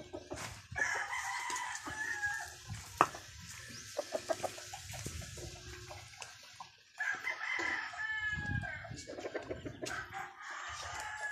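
Bantam roosters crowing: one long crow about a second in and another about seven seconds in, with short calls and clicks in between.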